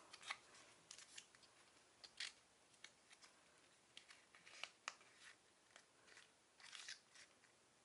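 Faint rustling and scattered light clicks of a small cardboard box being opened and handled, its flap folded back and the box turned in the fingers.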